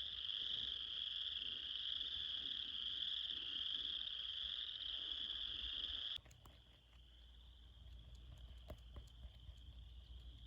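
A steady, high-pitched chorus of many frogs calling together, dropping suddenly to a fainter chorus about six seconds in.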